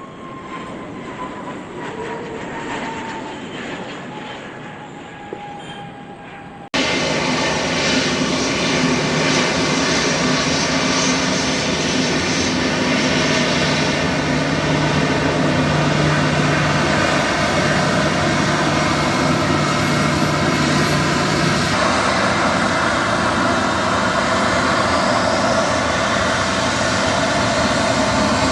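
A jet aircraft's whine slowly falling in pitch, then, about seven seconds in, an abrupt switch to the loud, steady jet noise of a Boeing 737 MAX 8's CFM LEAP-1B engines close by, with several steady tones through the roar.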